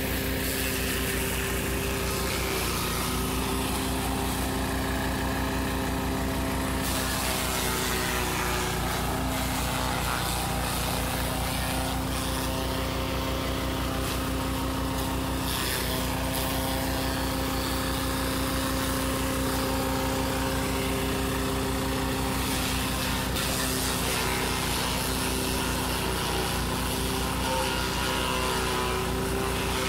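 Motor-driven forage chopper running steadily while whole corn plants are fed into it to chop them for silage. Its steady hum dips briefly in pitch a few times as the stalks load it.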